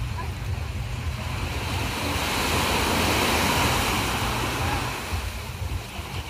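Small surf breaking and washing up the sand, swelling to its loudest about halfway through and then fading, over a steady low rumble of wind on the microphone.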